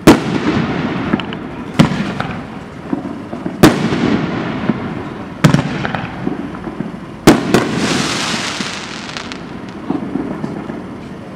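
Dominator Da Vinci 500-gram cake firing its aerial shells: five loud bangs about two seconds apart, each followed by a fading rumble and hiss. After the last bang a longer hiss trails off, with a few small pops near the end.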